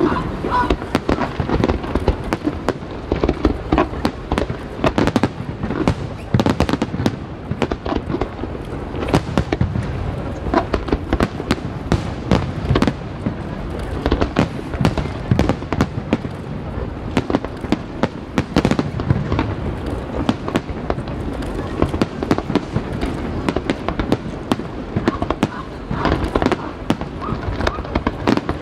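Fireworks display going off in a continuous barrage, with many sharp bursts close together and no pause.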